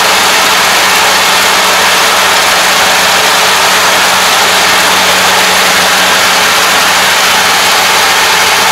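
Kubota ARN460 combine harvester running steadily as it cuts standing rice: a loud, even engine and machinery noise with a steady low hum.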